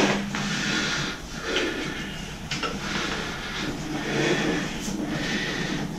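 A sharp knock, then irregular scraping and rubbing as a paintbrush is dipped into a paint can and wiped against its rim, with a few light knocks on the can.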